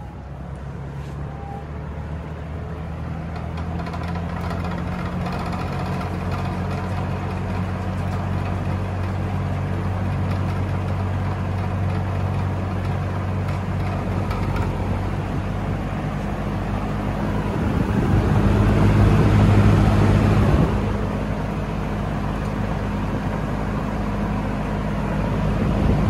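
Lakewood P-23 20-inch box fan starting up, its motor spinning the blades up to speed over the first few seconds, then running with a steady low hum and rush of air. The air noise grows louder for a couple of seconds about two-thirds of the way in, and again at the very end.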